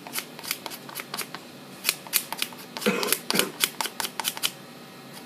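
Knife blade scraping down lamb rib bones against a cutting board, an irregular run of short sharp scrapes and clicks, as meat and sinew are cleaned off the bones in French trimming.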